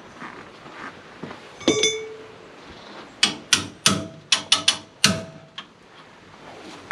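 Metal striking metal at a tractor's trailer hitch: one sharp strike that rings briefly, then, about a second and a half later, a quick run of about nine sharp clanks, a few of them ringing.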